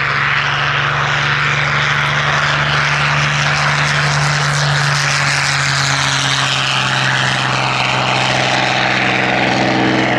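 Supermarine Spitfire's Rolls-Royce V12 engine and propeller at take-off power, a loud, steady drone as the fighter runs across the grass, lifts off and climbs away; some higher tones come into the note in the second half.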